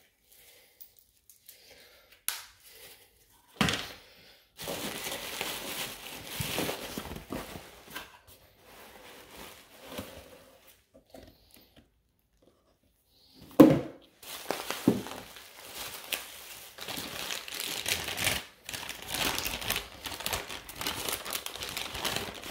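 Hands rustle cardboard box flaps and crinkle a plastic bag while opening and unwrapping packaging. The bag crinkling fills the second half. There are a couple of sharp knocks, the loudest about 14 seconds in.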